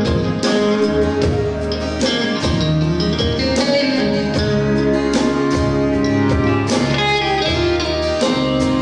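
Country band playing an instrumental passage between sung lines, led by guitar over a steady beat.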